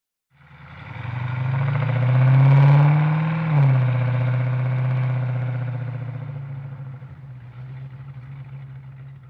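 An engine running with its pitch climbing over the first three seconds, then dropping sharply about three and a half seconds in. It then holds a steady, lower note and slowly fades.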